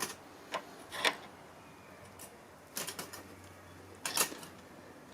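Hex die being turned by hand to chase a thread on a bolt: a few irregular metallic clicks and scrapes, the loudest about a second in.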